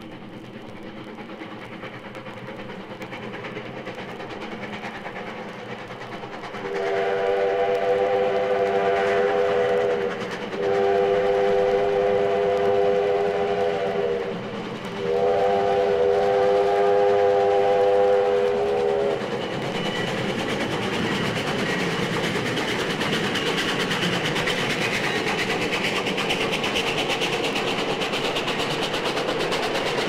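Steam locomotive whistle blowing three long blasts in close succession over the noise of the train, which grows louder as it comes on. After the whistle the train's running noise continues, steady and loud.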